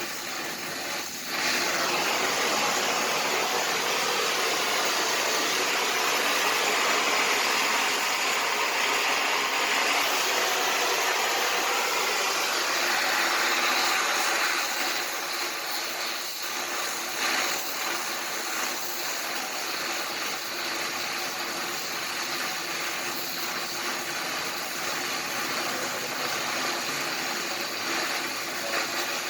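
Welding arc burning with a steady crackling hiss, louder from about a second and a half in until roughly halfway through, then dropping back to a quieter steady hiss.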